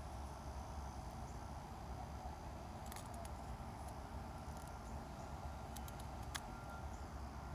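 Faint outdoor background: a steady low rumble and hiss, with a few light ticks about three and six seconds in.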